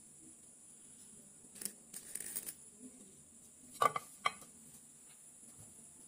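Small handling sounds as a drill bit is fitted into a rubber valve-tube shaft connector on a 775 DC motor that is not running: a click, a brief rustle, then two sharp clicks about half a second apart. A faint steady high hiss sits underneath.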